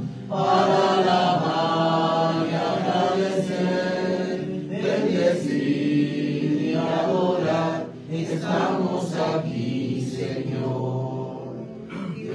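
Voices singing the slow entrance hymn at the opening of a Catholic Mass, in long sung phrases with short breaks about four and eight seconds in.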